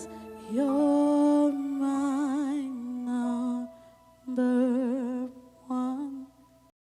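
A single voice humming a slow, wordless melody in long held notes with vibrato, in four short phrases with pauses between them. It cuts off abruptly near the end.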